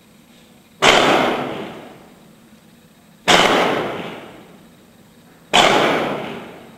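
Rifle firing party firing a three-volley salute: three sharp, loud volleys about two and a half seconds apart, each ringing out for over a second. It is the honors salute for fallen soldiers that follows the final roll call.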